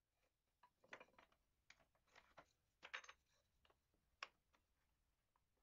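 Faint, irregular clicks and light knocks of thin wooden frame strips being handled and set against a corner clamp jig on a plywood work surface.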